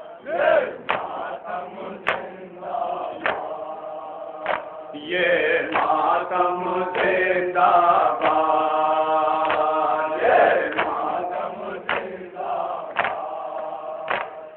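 Male voices chanting a nauha, a Shia mourning lament, with sharp chest-beating (matam) slaps about once a second keeping the beat. The chanting swells, fuller and louder, through the middle.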